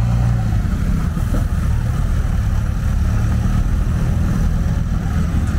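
JCB backhoe loader's diesel engine running with a steady low hum, with motorcycles passing close by.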